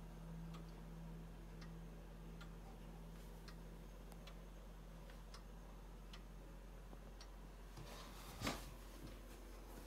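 Howard Miller New Yorker grandfather clock's pendulum movement ticking, a little under one tick a second with alternating short and long gaps. A single louder bump comes about eight and a half seconds in.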